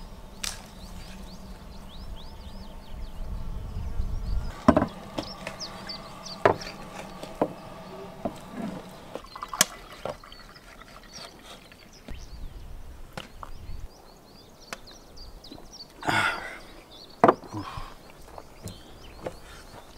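Knife chopping on a wooden cutting board: a handful of sharp, spaced knocks, the loudest a few seconds in and near the end. Small birds chirp at the start.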